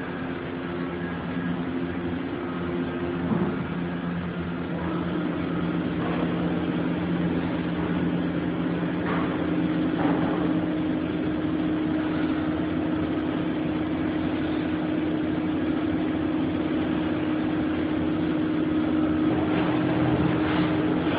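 Factory machinery running with a steady, droning hum that holds a few tones; the tones shift slightly about four seconds in, and a few faint knocks come through.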